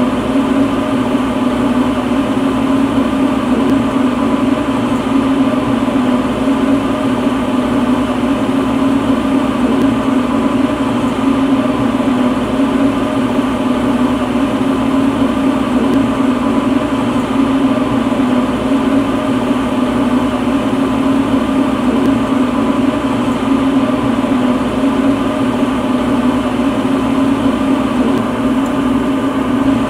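Lampworking torch burning steadily, a constant loud rushing hum with a low steady tone.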